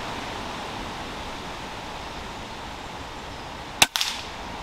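A single shot from a Weihrauch HW100KT .22 PCP air rifle about four seconds in: a sharp crack, then a second crack a split second later as the pellet strikes the grey squirrel. A steady outdoor hiss lies under it.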